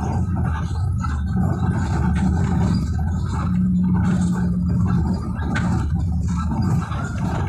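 Moving city bus heard from inside the cabin: engine and road noise as a steady low drone, with a hum that comes and goes and a few short rattling clicks.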